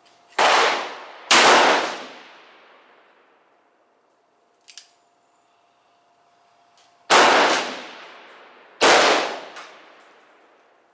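Four shots from a .44 Special revolver firing 262-grain round-nose loads: two about a second apart, then after a pause of several seconds two more, each ringing out and fading slowly. A short click sounds in the pause.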